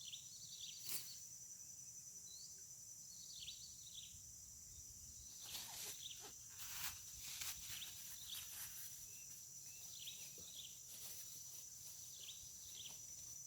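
Outdoor ambience of a steady, high-pitched insect drone with repeated short, falling bird chirps. A few sharp clicks sound in the middle.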